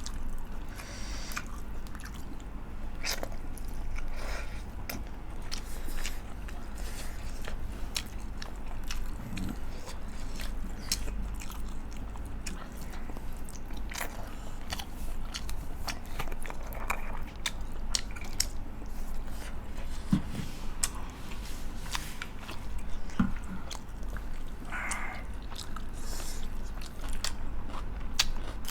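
Close-up eating sounds: chewing and biting a meal of rice, chicken curry and mustard greens. Many short wet mouth clicks and smacks are scattered throughout, with a few soft crunches.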